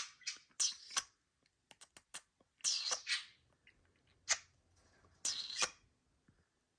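Budgerigar making a handful of short, scratchy, hissy sounds, about five in all, with a sharp click at the very start.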